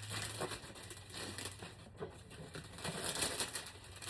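Irregular rustling and crinkling of packaging being handled.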